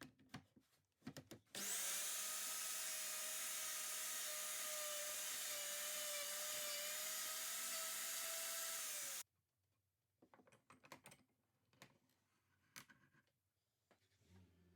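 Electric hand router running steadily for about seven seconds, cutting wood, then cutting off suddenly. Scattered light knocks and clicks from handling wood come before and after.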